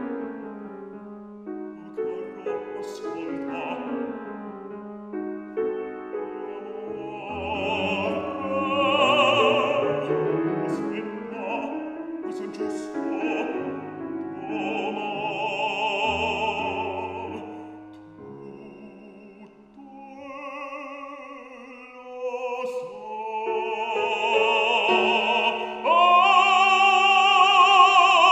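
Operatic baritone singing an Italian aria with wide vibrato, accompanied by a grand piano. The piano plays alone for the first few seconds before the voice comes in, and the singing is loudest near the end.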